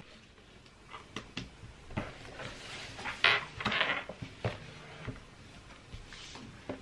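A few taps on laptop keys, then a book picked up and handled with a brief rustle, and set down on the desk with a soft knock.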